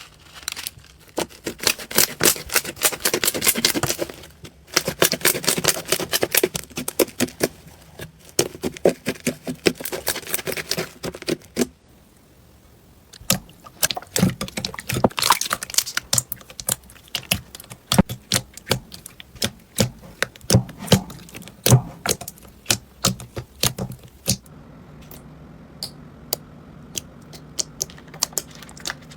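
Slime being squeezed and poked by hand, making dense runs of sharp clicks and crackles. There is a short lull about twelve seconds in, and near the end the clicks thin out over a steady low hum.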